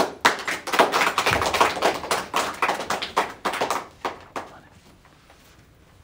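Hand clapping: brief applause of a few people, a dense run of sharp claps for about four seconds that dies away.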